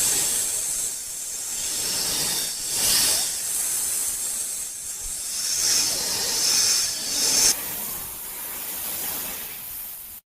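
Snake hissing in a series of long, swelling hisses, then fainter after a sudden drop, cutting off abruptly near the end.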